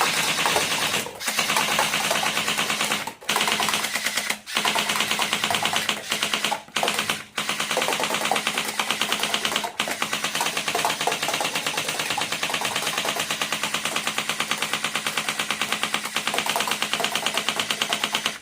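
Battery-powered toy gun firing continuously: a fast, even machine-gun rattle over a steady motor hum, broken by a few short pauses in the first half.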